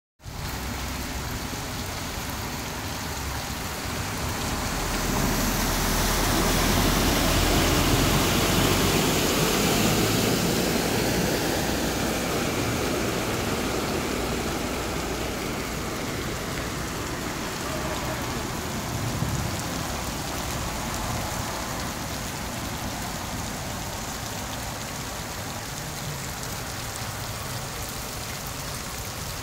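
Heavy rain falling steadily, swelling louder for several seconds a little way in before settling back to a steady hiss.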